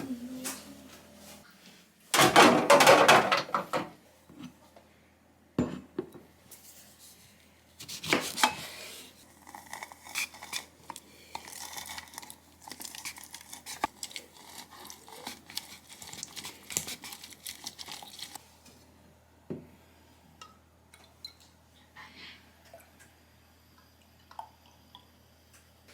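Dishes and food containers being handled in a kitchen: a loud rushing burst about two seconds in, a few knocks, then a long run of small clinks and clicks that thins out to occasional light taps near the end.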